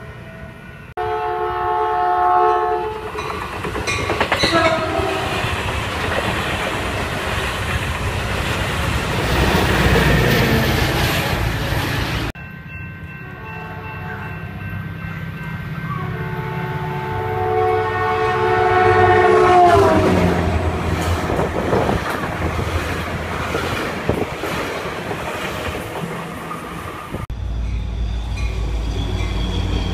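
Diesel locomotive horn sounding a multi-note chord twice: a short blast near the start, and a longer one later whose pitch drops near its end as the train goes by. Under it, the rumble and clatter of a passing train on the rails.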